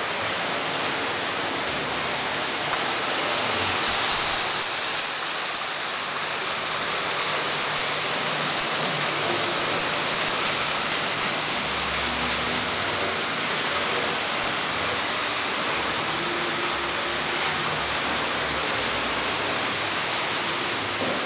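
Several Märklin HO model trains running on metal M-track: a steady rushing rattle of wheels on the stamped rails, with faint motor hums beneath it.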